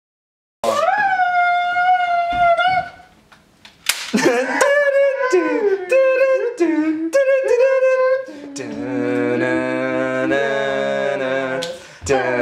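A person humming a wordless tune: a held high note, a short pause, then a melody that slides up and down, ending on a steadier held note.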